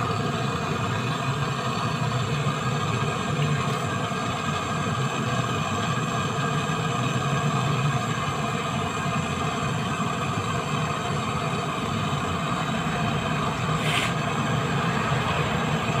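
Handheld gas brazing torch flame burning steadily on a copper pipe joint at a refrigerator compressor. A short faint click comes near the end.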